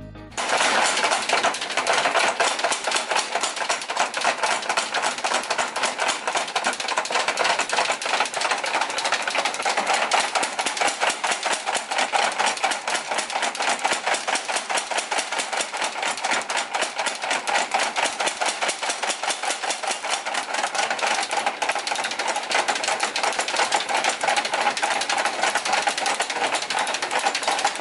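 Mechanical power hammer pounding a red-hot iron bar held in tongs: a rapid, steady run of metal blows that starts about half a second in.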